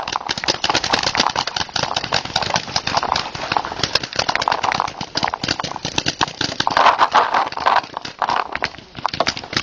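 A fast, irregular string of sharp pops and clicks: paintball markers firing during a game, mixed with the jostling of the player moving to cover.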